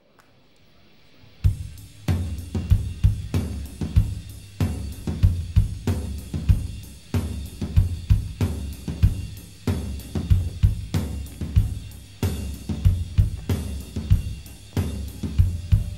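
Rock drum kit playing a steady beat alone, kick drum, snare, hi-hat and cymbals, as the song's drum intro, live through a concert PA. The drums come in about a second and a half in, after a faint rising noise.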